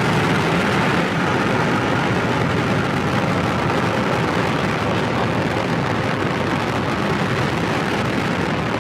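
Steady rumble of a Falcon 9 first stage's nine Merlin engines burning during ascent, shortly after liftoff.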